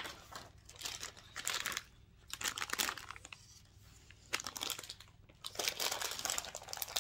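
Plastic snack packet crinkling in the hands in several short rustling spells, as it is handled and pulled open.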